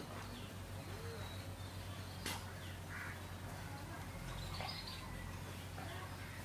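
Quiet outdoor background with scattered short bird calls and chirps over a steady low hum, and a single sharp click a little after two seconds in.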